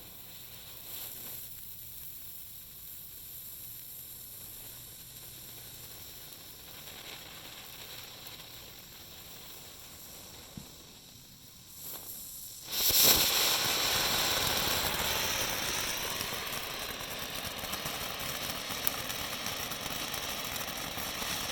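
A lit firework on its fuse hissing faintly, then catching about thirteen seconds in with a sudden loud rush of sizzling hiss that carries on and slowly fades.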